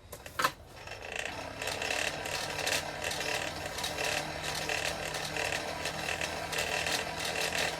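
A short metallic clank, then a forge blower starts up about a second in and runs steadily with a whir and a constant hum, blowing air into the fire pot to bring the chain link back up to welding heat.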